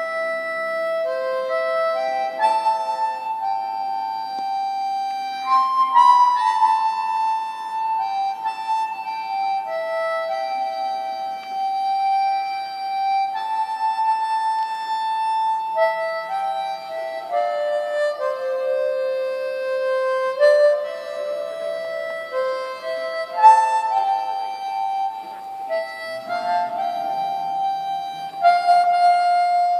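Harmonica playing a slow instrumental melody of long held notes, with softer accordion chords underneath; no singing.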